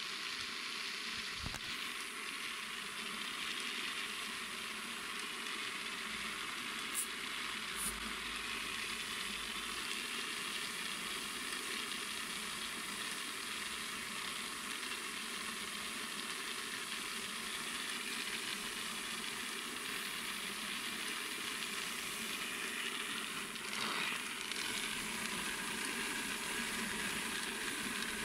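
Small round firework stars tumbling against the wall of a spinning star-roller drum as they are rolled and coated with composition, a steady unbroken hiss. Two short clicks about seven and eight seconds in.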